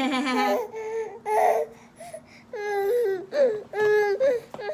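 A seven-month-old baby making a string of short, high-pitched whiny vocal sounds, about seven in all, with brief pauses between them.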